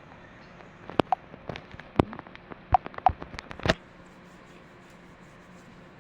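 A quick string of sharp clicks and taps from small hard pieces being handled and set down, a few with a short ringing note, then stopping about four seconds in.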